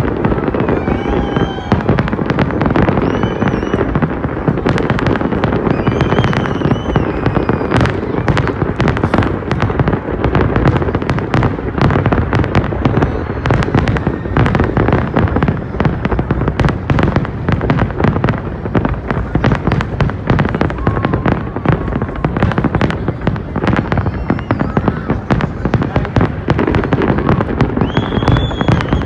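Large fireworks display: a dense, continuous run of bangs and crackles from many shells bursting, with a brief high-pitched whistle now and then.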